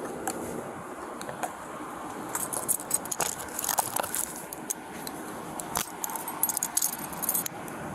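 Metallic jingling and clicking of police handcuffs being handled, in many short rattles that grow denser from about two seconds in.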